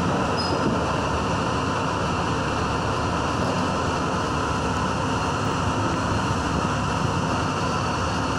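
R62 subway train running through a tunnel: a steady rumble and rush of wheels on rail, with a faint steady whine over it.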